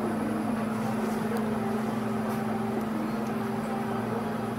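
A steady low mechanical hum, one constant droning tone with fainter tones above it, with a few faint small ticks.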